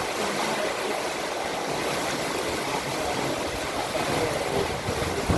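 Heavy rain pouring down in strong wind: a steady, even rush of noise.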